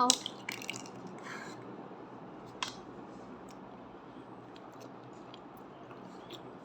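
Mostly quiet room tone with a few scattered short clicks, the clearest about two and a half seconds in.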